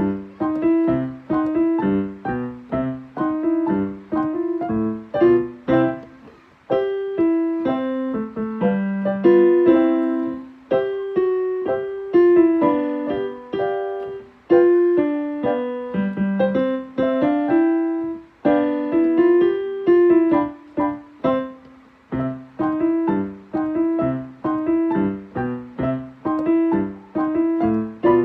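Piano ensemble playing a beginner-level piece. Short, crisp staccato notes open and close it, with smoother, held legato lines through the middle.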